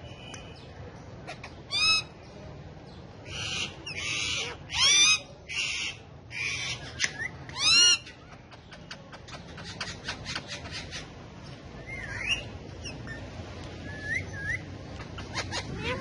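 Indian ringneck parakeets calling: a run of loud, harsh screeches and rapid trilled calls in the first half, then a few softer chirps.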